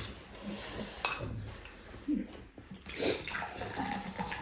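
Eating noises at a table: chewing and the clatter of food, containers and utensils, with one sharp click about a second in.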